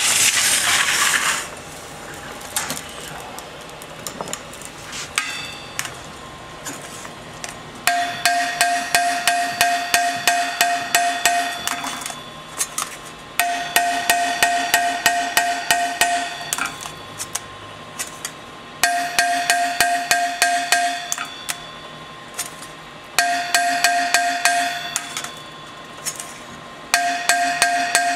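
Small hand hammer striking the steel of a wide band saw blade at its joint, in five quick runs of light blows in the second half. The blade rings with a steady metallic tone through each run. A brief loud rushing noise comes right at the start.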